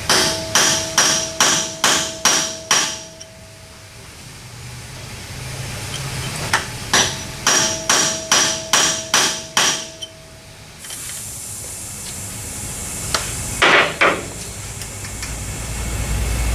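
Hammer blows on steel, each with a metallic ring, in two runs of about eight blows at roughly three a second: driving at a drilled-out wheel stud to knock it free. A hiss and a brief rattle follow near the end.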